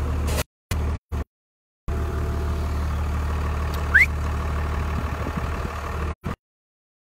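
JCB Fastrac tractor engine running steadily, heard from inside the cab as a low drone. The sound cuts out to silence several times in the first two seconds and again near the end, and a short rising squeal rises over the engine about four seconds in.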